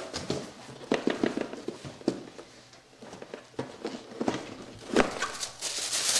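Cardboard boxes being handled on a table: scattered knocks and scrapes of box and lid, with a sharp knock about five seconds in, then tissue paper rustling and crinkling near the end.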